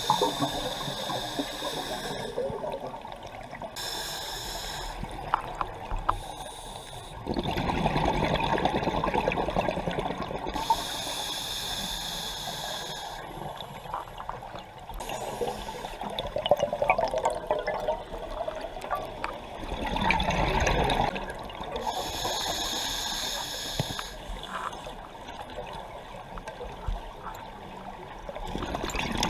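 Scuba diver breathing through a regulator underwater: hissing inhalations alternate with louder, lower bursts of exhaled bubbles every few seconds.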